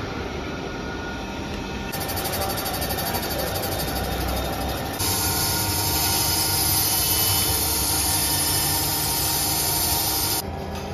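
Crankshaft grinding machine running: a steady mechanical hum with a high hiss from the large grinding wheel spinning under a stream of coolant. The hiss comes in about two seconds in, grows louder about halfway, and falls back just before the end.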